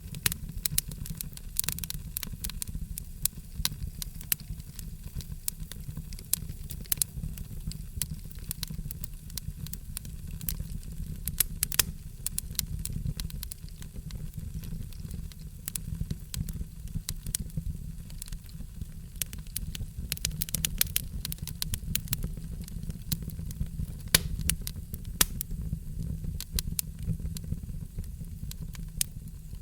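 Wood fire burning, with frequent irregular sharp crackles and pops over a steady low rumble of the flames.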